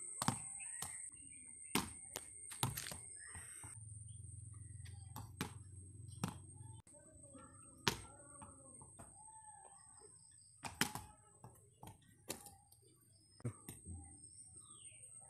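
Sharp wooden knocks at irregular intervals, about a dozen: a cricket bat striking a ball and the ball hitting the concrete, with faint bird chirps in between.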